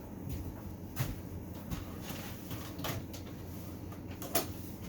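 Three short knocks as tools or parts are handled, about one, three and four and a half seconds in, over a low steady hum.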